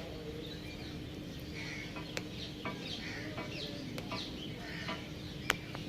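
Birds clucking and chirping in short, overlapping calls, with several sharp clicks scattered through and a faint steady hum underneath.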